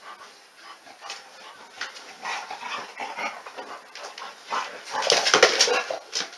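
Dogs making whimpering play noises in irregular bursts, loudest about five seconds in.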